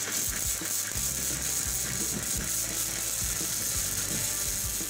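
Flux-core wire-feed welder (Titanium Easy Flux 125) arc crackling steadily as a weld is laid on a steel mounting bar.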